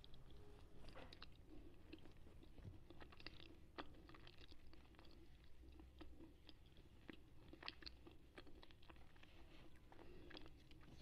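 Lal Qila slate pencils being chewed and crunched close to an earphone microphone: faint, irregular crunches and small clicks.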